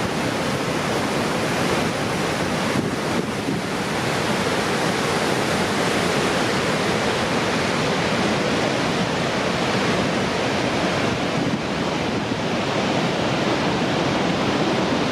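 Upper Falls of the Yellowstone River: a steady roar of falling water.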